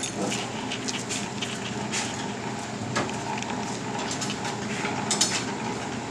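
Scattered light metallic clinks and taps of hand tools being worked against the underside of a car, a little louder about five seconds in, over a steady low hum.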